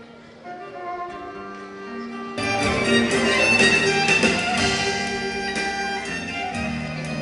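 Instrumental music: a melody of held notes that turns suddenly louder and fuller about two and a half seconds in.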